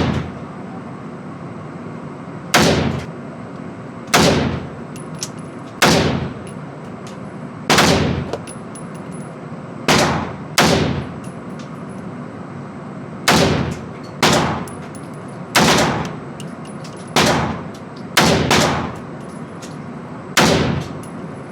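.300 Blackout AR pistol fired in a slow string of about a dozen loud shots, one to two seconds apart and twice in quick pairs, each shot followed by a short ringing tail.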